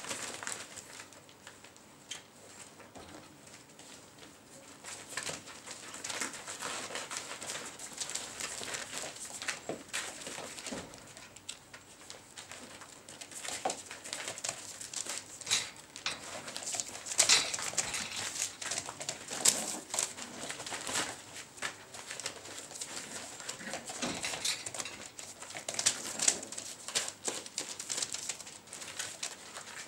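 Poodle puppies playing and tugging at a plastic sheet: irregular rustling, crinkling and scuffling of paws, busier and louder from about halfway through, with small puppy vocal sounds.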